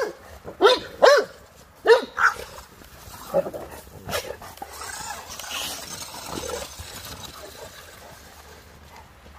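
Dogue de Bordeaux barking, excited by a toy remote-control car: a quick run of about five loud barks in the first couple of seconds, then a few fainter, spaced-out barks.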